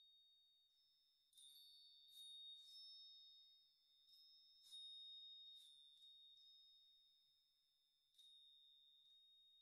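Faint background music of sparse, high, bell-like notes, each struck and left to ring out, about one a second.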